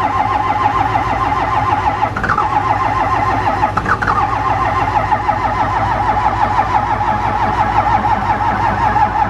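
Cold Cummins inline-six diesel of a Dodge W250 cranking over on the starter with a steady rhythmic pulsing, not catching, until the cranking stops near the end. It is a hard cold start that the owner blames on a leaking fuel filter housing O-ring and thick 15W-40 oil with no block heater plugged in.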